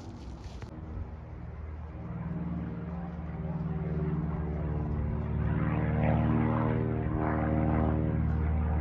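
Propeller airplane engine droning, growing louder over the first few seconds as the aircraft approaches.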